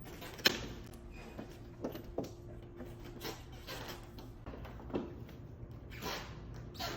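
Letterpress printing press being worked by hand: a series of irregular mechanical clacks and knocks, the sharpest about half a second in, with others spaced a second or so apart.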